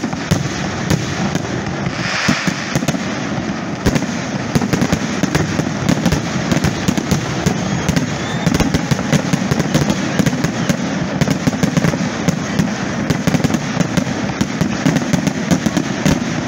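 Fireworks display: a dense, continuous barrage of aerial shells going off, with many rapid overlapping pops and bangs over a steady booming background. There is a brighter crackling burst about two seconds in.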